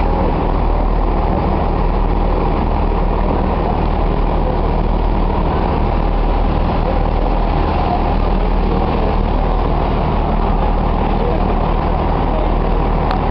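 Diesel multiple unit's underfloor engine idling steadily, a constant low hum.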